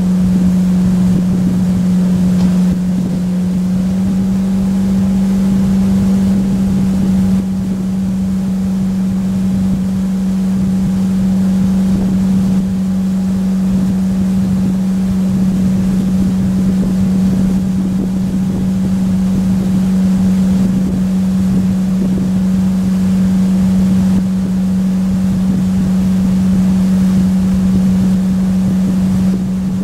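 Motorboat engine running at a steady cruising speed, a constant drone that hardly changes, with wind on the microphone and rushing water.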